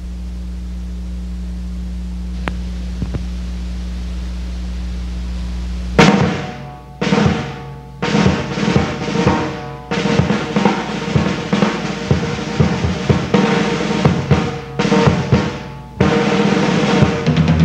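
A steady low hum for about six seconds, then a marching band drumline cuts in suddenly: snare and bass drums playing a cadence of sharp strikes in short runs with brief breaks.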